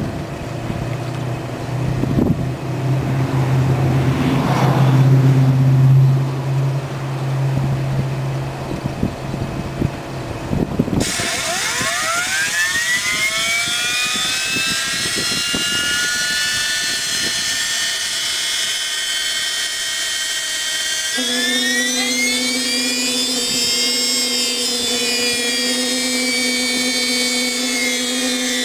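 Homemade turbojet built from a turbocharger starting up. A low hum with rushing air is followed, about eleven seconds in, by a high many-toned whine as the compressor wheel spins up quickly and levels off. Some ten seconds later the whine climbs higher, then eases back down.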